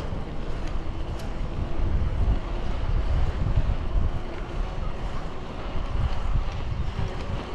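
Wind buffeting the microphone outdoors: an unsteady, gusty low rumble over a steady hiss.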